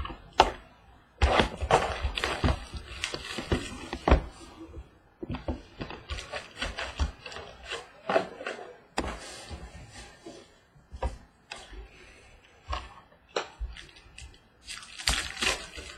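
Sealed trading card packs and cards being handled on a wooden table: stretches of rustling from wrappers and cardboard, broken by many light knocks and taps.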